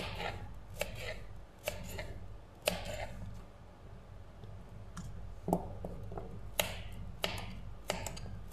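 Kitchen knife slicing a raw carrot into rounds on a plastic cutting board: each stroke a crisp cut ending in a knock on the board, about one a second, with a pause of a couple of seconds in the middle. A low steady hum runs underneath.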